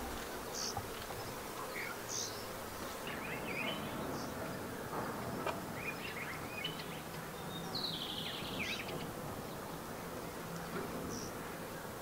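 Steady buzzing of insects, with scattered short high chirps over it.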